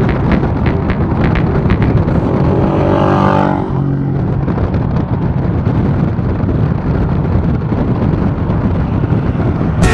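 BMW R1250GS boxer-twin motorcycle on the move, with steady wind rush over the microphone under the engine note. About three seconds in, an engine note drops quickly in pitch.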